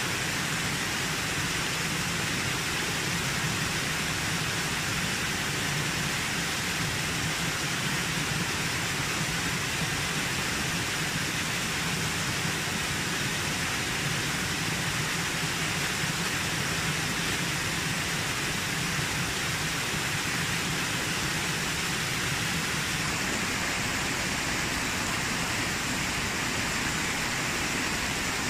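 Steady rush of a small waterfall pouring over rock into a shallow pool.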